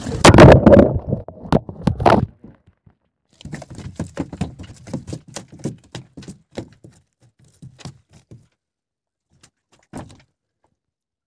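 A loud thump at the start, then a run of short knocks and clicks as a gill net and fish are handled on the planks of a wooden boat, with one last knock near the end.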